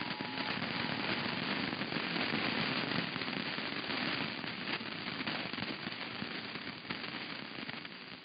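Crackling, hissing static from a weak off-air radio recording. The faint tail of the Emergency Alert System two-tone attention signal stops about half a second in.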